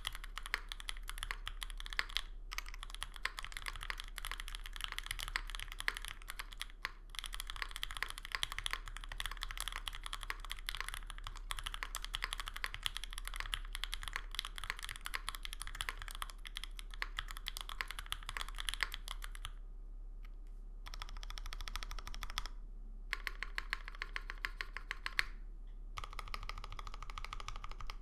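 Rapid, continuous typing on a Monokei Kei R2 mechanical keyboard with lubed 43 Studio OPBlack linear switches on an O-ring-mounted aluminum full plate, under GMK keycaps: a dense stream of bright clacky keystrokes. About two-thirds of the way through, the typing breaks into a few short stretches separated by brief pauses.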